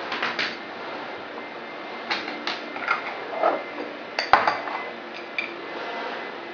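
Light metal clinks and taps of fine-tipped forceps handled on a hard work surface: a few scattered ticks, the sharpest about four seconds in, over a steady hiss.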